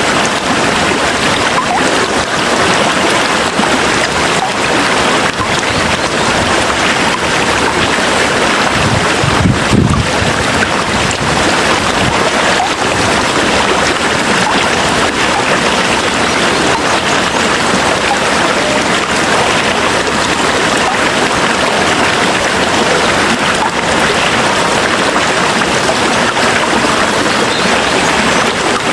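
Steady, dense rain noise, with a brief low rumble about nine to ten seconds in.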